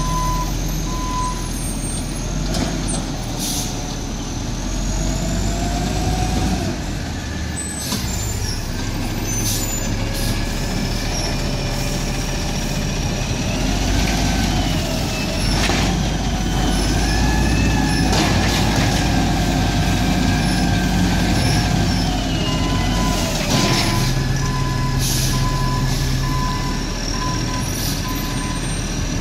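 Peterbilt 320 garbage truck with an Amrep Octo automated side loader manoeuvring: its diesel engine runs steadily, revving up and down, with a few sharp hisses of air brakes. Its reversing beeper sounds briefly at the start and again near the end.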